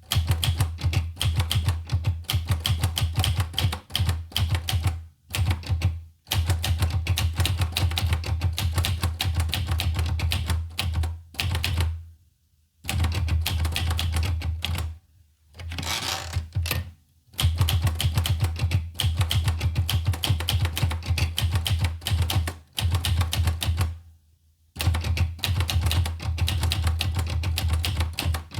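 Olivetti Lettera 25 manual typewriter being typed on fast, with rapid runs of keystrokes broken by short pauses. A brief rasping sound comes about sixteen seconds in.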